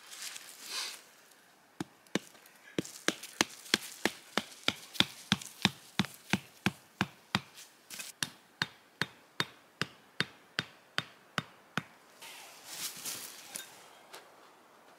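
A hatchet's poll hammering a wooden stake into the forest floor: a steady run of about thirty sharp knocks, roughly three a second, with brief rustling before and after.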